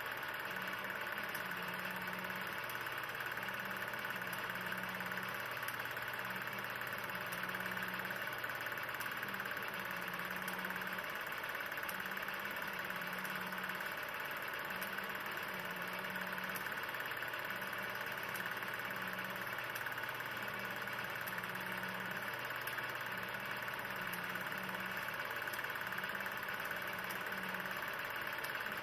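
16 mm film projector running: a steady mechanical whir with a low hum underneath, and a second low tone that cuts in and out irregularly.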